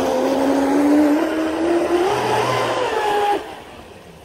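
Radio-controlled boat's motor whining under full throttle on a fast pass over the water, its pitch rising a little, with the hiss of the hull on the water beneath. The whine cuts off suddenly a little past three seconds in as the throttle is released.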